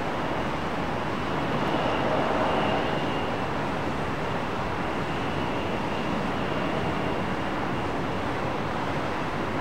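Jet airliner engine noise: a steady rush that swells slightly about two seconds in, with a faint high whine.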